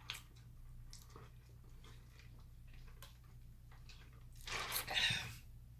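A person chewing food close to the microphone, with faint wet clicks of the mouth. About four and a half seconds in there is a louder, noisier sound lasting under a second.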